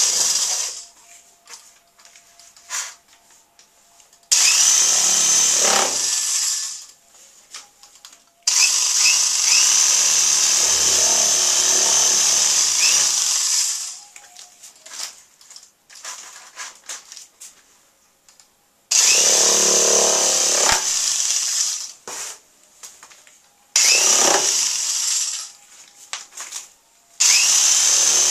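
Power drill switched on and off in bursts of a few seconds, about five times, a loud hissing whir as it spins paint across a canvas. Short clicks and knocks of handling come in the pauses between runs.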